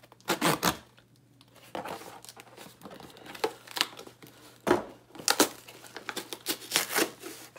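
Packaging being unwrapped by hand: an irregular run of sharp crinkling and rustling crackles with short pauses between.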